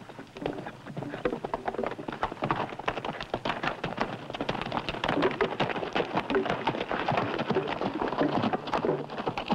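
Hoofbeats of two horses on dry, stony ground: a quick, uneven clatter that grows louder as they approach.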